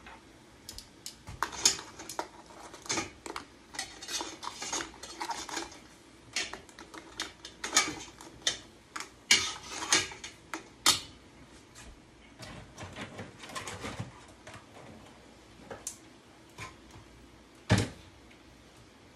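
Metal utensil clattering and scraping against a stainless steel pot, its steamer basket and crab shells, in irregular clicks and knocks, with one louder knock near the end.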